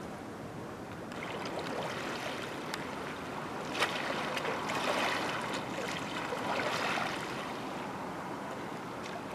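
Seawater lapping and sloshing against a moored fishing boat's hull and the pier, swelling louder from about a second in and surging unevenly, with a single sharp knock about four seconds in.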